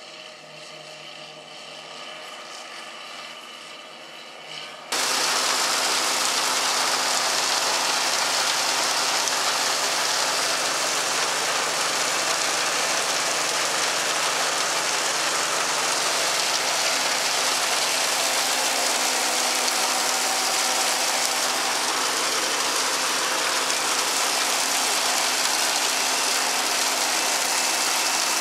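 John Deere 4840 tractor and forage harvester chopping corn, engine running steadily and growing louder. About five seconds in, this gives way suddenly to a loud, steady rush of a forage wagon unloading: beaters and cross auger turning and chopped corn silage pouring out the side, over a steady tractor engine hum.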